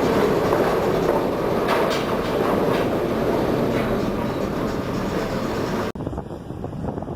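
Steady heavy rumble with scattered rattling knocks aboard a cargo ship rolling in a storm. About six seconds in it cuts abruptly to gusting wind on the microphone with splashing water.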